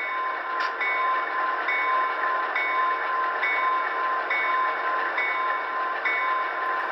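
Locomotive bell effect from a Soundtraxx Tsunami sound decoder in a Walthers HO-scale EMD E9A model, played through the model's small onboard speaker. The bell rings at an even pace, a little faster than once a second, for about eight strokes, then stops near the end, over a steady engine noise from the same decoder.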